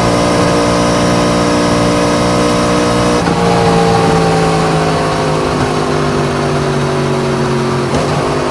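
Yamaha MT-10's crossplane inline-four engine running at highway cruising speed, heard from on the bike over a steady wind rush. The engine note steps abruptly about three seconds in, then sinks slowly as the bike eases off, and changes again near the end.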